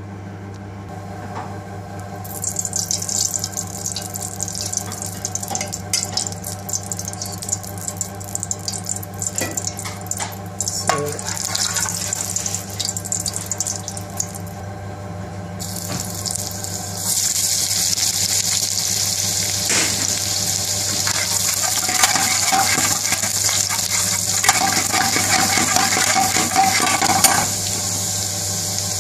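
Hot oil sizzling in a black iron wok on a gas burner, with a steady low hum underneath and a few light spoon clicks. The sizzle turns louder and denser a little past halfway, as sliced garlic and green chillies fry in the oil.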